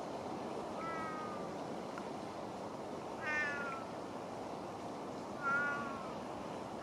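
A cat meowing three times, short calls that fall in pitch, the first faint and the second and third louder, over a steady background hiss.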